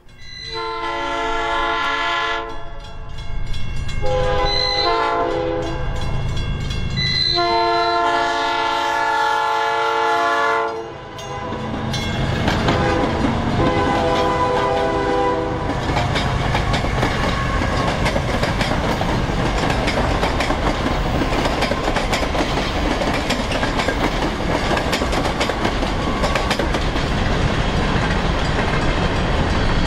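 A train horn sounds four blasts, the third and fourth long, as trains approach. Then comes the steady rumble and wheel clatter of trains running close past, including a Chicago South Shore & South Bend electric passenger train.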